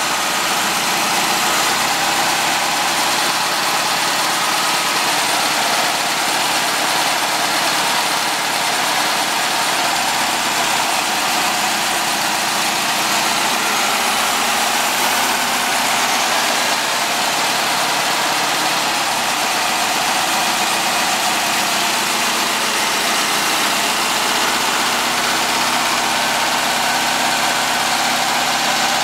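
Air-cooled VW flat-four engine running steadily at a raised idle, heard through an exhaust fitted with a baffle, with a freshly sealed leak near the #2 exhaust port. The engine is still cold.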